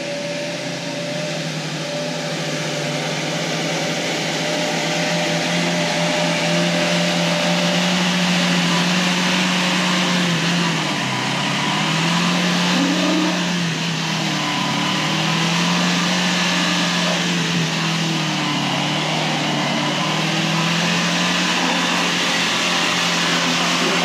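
A 4x4 pickup's engine pulling hard at high revs as it churns up a muddy slope, its pitch dropping and climbing back several times as the tyres bog down and spin, over a steady rush of noise.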